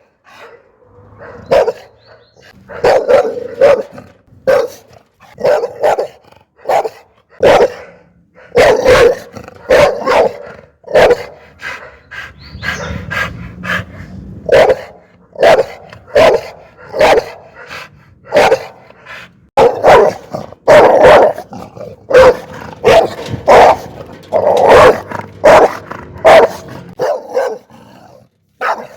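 Pit bull barking angrily in a long run of loud, separate barks, about one to two a second, with a low rumble under the barks through much of the second half.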